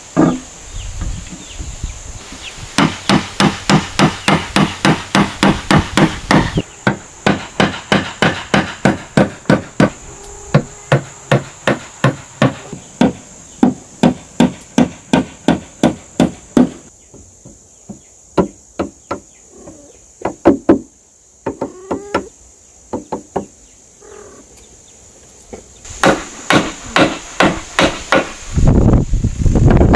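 Claw hammer driving nails into wooden boards: a long run of steady, evenly spaced blows about three a second, then slower scattered blows. Near the end, a hand saw cutting through wood.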